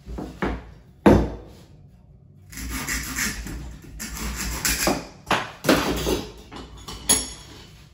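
Hand saw cutting through a bamboo tube clamped in a vise: a run of irregular saw strokes, finishing a square cut. A sharp knock about a second in.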